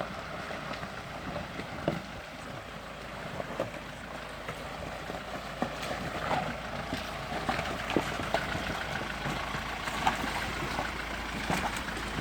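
SsangYong Rexton SUV driving slowly along a rocky creek bed: a steady low rumble with scattered knocks and clatters throughout.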